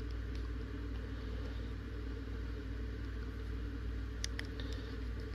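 Steady low mechanical hum, with a few faint small clicks a little over four seconds in.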